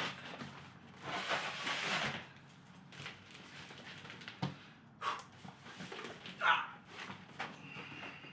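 Large cardboard desk box being handled through a doorway: a scraping rustle about a second in, then a knock and two short, sharper sounds as it is set on end and moved.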